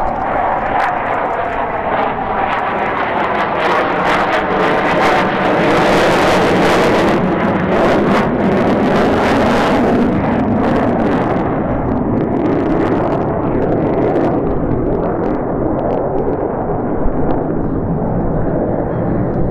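An RF-4E Phantom II's twin J79 turbojets on a slow, gear-down pass: loud steady jet noise that turns harsher and crackling around the middle, then grows duller as the jet flies away.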